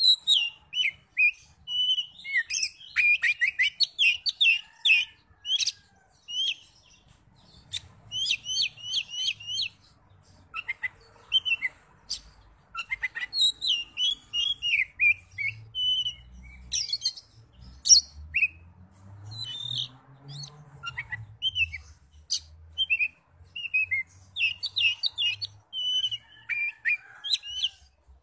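Oriental magpie-robin singing a varied song of short whistled and chirping phrases, delivered in bouts with brief pauses.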